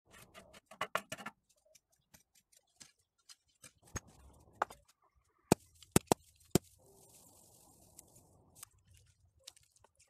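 Sparse scrapes, crunches and sharp clicks of hand work with mud and straw: a stick stirring wet mud in a metal pot, a sickle cutting dry straw, and mud being packed onto stones. A cluster of sharp cracks comes about halfway through, followed by a soft hiss.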